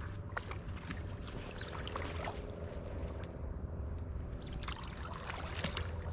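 Water splashing and sloshing as a hooked carp thrashes at the surface and a person wades with a landing net to scoop it.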